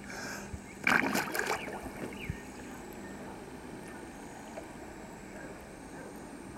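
A swimmer splashes as he ducks under the river surface, about a second in; afterwards only a low steady background of water and breeze.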